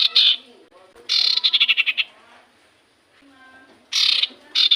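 Songbird calls played as a lure recording: a fast, harsh chattering trill about a second in, a brief soft call in the middle, and another burst of chattering trills near the end.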